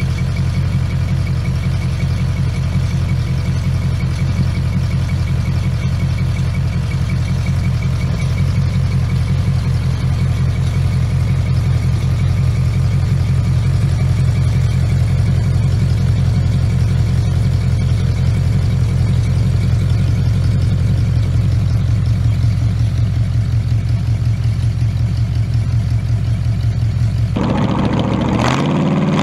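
Ford flathead V8 with twin carburettors idling steadily with an even beat. Near the end a louder hot-rod flathead V8 cuts in and revs up, its pitch rising.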